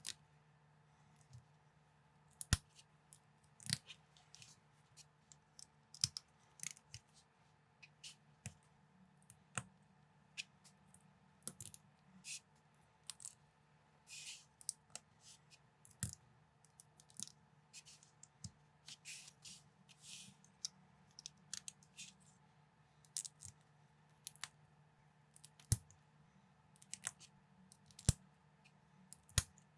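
Plastic LEGO-style bricks clicking as they are snapped together and handled: irregular sharp clicks, a few per second, with short rattles of pieces being picked through. A faint steady hum sits underneath.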